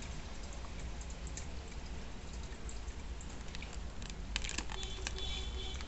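Tarot cards being handled: light scattered clicks and taps of the cardstock and fingernails as cards are shifted in the hand, a little busier about four seconds in, over a faint room hum.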